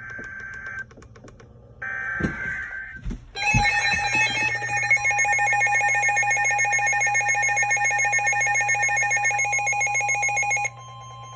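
Emergency Alert System tones: short bursts of warbling data tones, then a steady electronic attention tone held for about seven seconds that cuts off abruptly near the end. The tones mark the start of a new severe thunderstorm warning broadcast.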